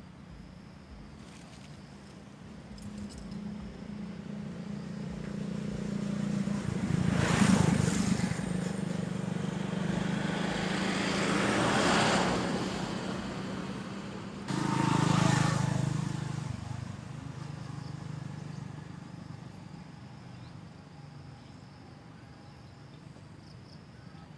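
Motor vehicles passing: engine noise builds over several seconds and is loudest about seven and a half and twelve seconds in, then a second engine cuts in abruptly about fourteen and a half seconds in and fades away over the next few seconds.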